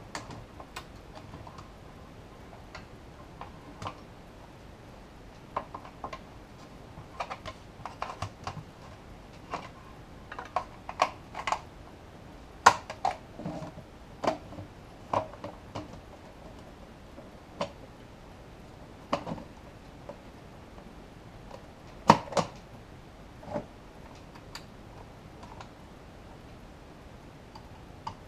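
Irregular clicks, taps and knocks as the metal chassis, front panel and cable connectors of a Behringer Ultragain MIC2200 rack-mount tube preamp are handled during reassembly, with two sharper clicks standing out, one about halfway through and one about three quarters through.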